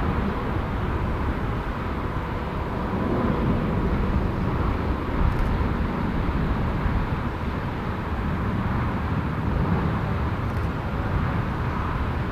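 The twin CFM56 turbofan engines of a Boeing 737-500 at take-off power as the jet climbs away, a steady deep rumble with a faint steady tone.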